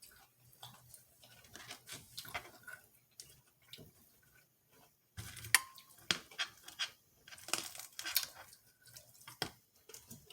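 Eating sounds: crunchy chewing of fried dumplings and egg rolls, with scattered clicks and a sharp clink of dishware about five and a half seconds in.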